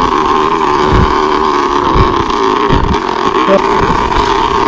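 Mountain bike coasting fast down a rough trail: a loud, steady buzz from the ratcheting freehub of the Hope rear wheel, with heavy thumps as the wheels hit bumps and rocks about one, two and three seconds in.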